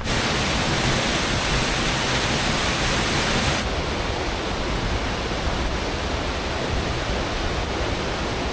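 Mountain stream rushing over rocks and small rapids, a loud, steady hiss of water. It eases slightly about three and a half seconds in.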